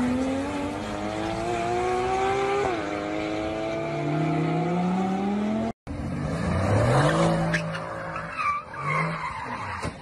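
A race car's engine accelerating hard, its pitch climbing, falling once at an upshift about a third of the way in, then climbing again. After an abrupt cut, a Mercedes sedan's engine revs up with its tyres skidding.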